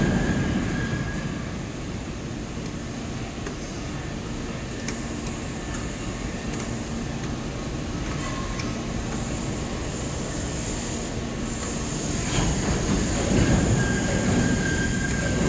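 Haitian injection molding machine running through its cycle: a steady mechanical hum while the mold stays clamped, swelling louder at the start and again from about twelve seconds in as the mold begins to open, with a thin high whine at those louder moments.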